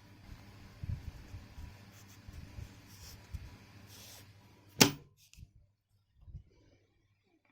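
Sewing materials being handled on a work surface: soft low knocks and rustles, then one sharp loud click a little under five seconds in.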